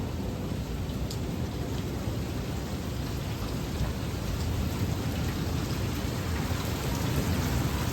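Heavy rain pouring down in a severe thunderstorm, over a steady low rumble.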